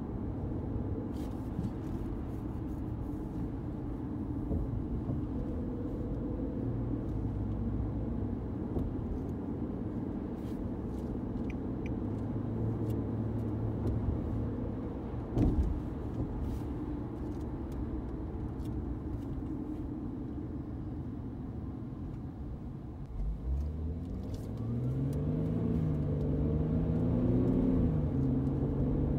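Infiniti Q50 driving, heard from inside the cabin: a steady road and engine rumble, with a single thump about halfway through. In the last several seconds the engine note rises in pitch and gets louder as the car accelerates.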